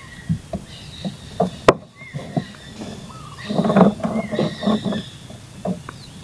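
Irregular knocks and rustles as mangrove branches are handled from a wooden boat, with a sharp click about two seconds in and a busier cluster a little past the middle. Faint bird chirps run behind.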